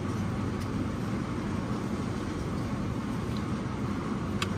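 Steady low background rumble of the shop, with a few quick metallic clicks near the end as the serpentine belt tensioner is worked with a ratchet.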